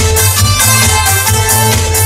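Music with a steady beat, sustained melodic notes over a pulsing bass.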